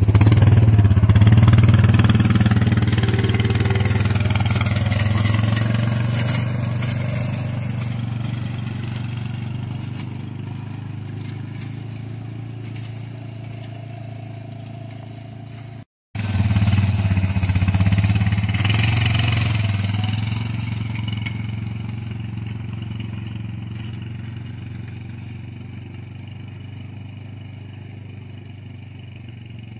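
ATV engine running as the quad tows a boom sprayer away, growing fainter as it goes. After a brief cut about halfway through, the engine is loud again and fades once more as the quad pulls away.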